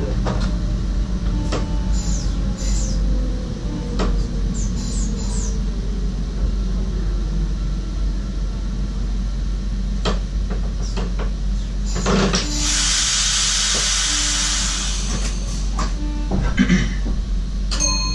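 SGMm Sprinter electric train heard from the driver's cab: a steady low rumble with a few short clicks and faint steady tones, and a burst of hiss about twelve seconds in that lasts a couple of seconds.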